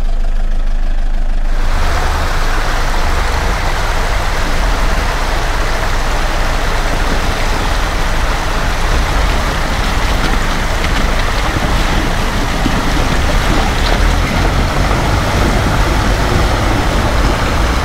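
Land Rover engine running steadily. About two seconds in, a dense, steady rushing noise joins it and holds to the end.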